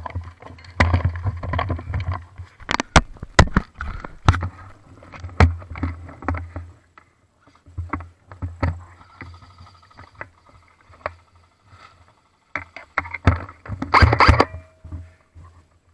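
Movement noise on a body-worn microphone during an airsoft game: irregular sharp clicks and knocks over a rough low rumble that comes and goes, with a dense run of clicks about thirteen seconds in.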